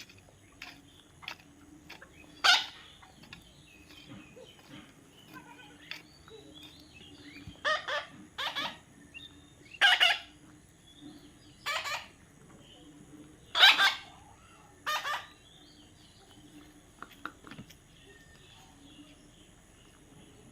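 Baby parrot squawking: short, harsh calls repeated at irregular intervals, a few seconds apart.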